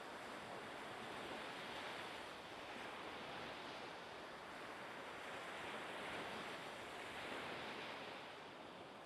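Seaside ambience: a steady rush of surf and wind, gently rising and falling.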